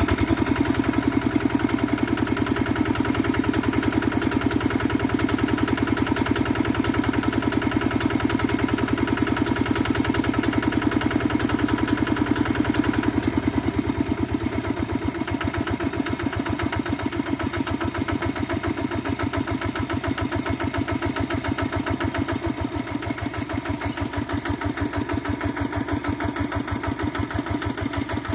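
Single-cylinder diesel engine of a Quick G1000 two-wheel hand tractor running with a steady beat. About halfway through its deep rumble drops away and it gets a little quieter.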